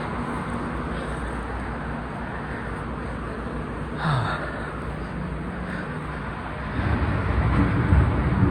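Street traffic running steadily. A vehicle passes louder near the end, with a low rumble and a steady hum.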